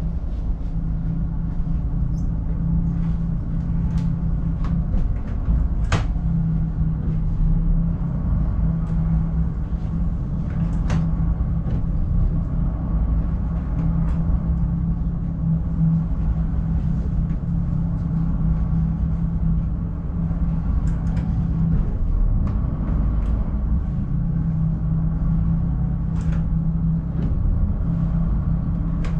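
Twin marine diesel engines of a motor yacht running at low speed, a steady low drone heard from the flybridge, with a few sharp clicks scattered through it as the engine controls are worked.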